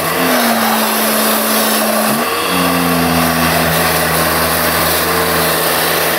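Kärcher pressure washer running with a jet foam lance, spraying soap: a loud hiss of spray over the steady hum of the washer's motor and pump. The hum drops in pitch about two seconds in.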